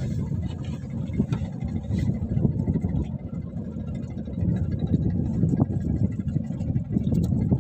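Wind buffeting the microphone: a low, uneven rumble that swells and eases, with a few faint ticks.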